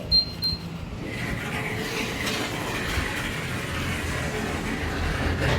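A passenger lift car travels down its shaft with a steady running rush and hum. Two short high beeps sound right at the start, with a few light knocks in the first second.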